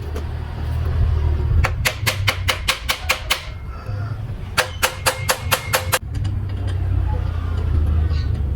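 Two runs of rapid, even clicking, about five or six clicks a second, over a steady low rumble.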